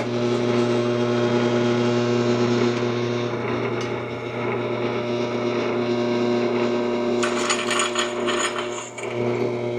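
Belt-driven drill press running steadily, its bit cutting into a bracket of hard steel: a constant motor hum under a grinding, scraping noise, with a crackly scratching from about seven seconds in until just before nine.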